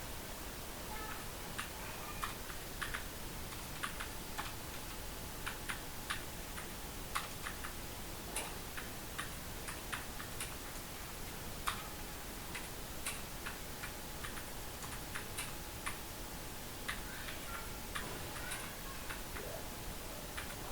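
Computer keyboard being typed on: keys clicking in an irregular run of keystrokes, a few a second, over a steady background hiss.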